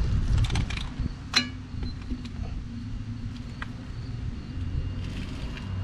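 Steel socket, extension and torque wrench clinking as they are fitted onto a trailer wheel's lug nut: a few light clinks at the start and one sharp clink about a second and a half in, over a low steady hum.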